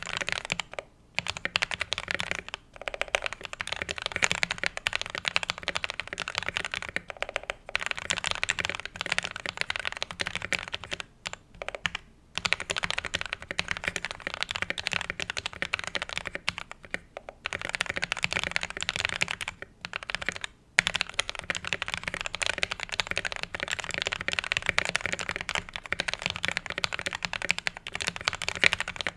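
Fast typing on a custom DK87 mechanical keyboard with KTT Kang White linear switches: a dense run of keystroke clacks, broken by several brief pauses of under a second.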